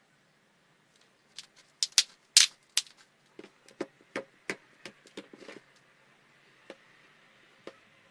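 Irregular sharp clicks and taps, densest and loudest about two to three seconds in, then thinning to a few scattered clicks.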